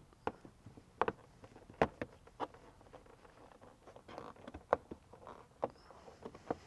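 Scooter floor mats being lifted off the floorboards: a string of irregular sharp clicks and knocks as they come free, with some rustling about four seconds in.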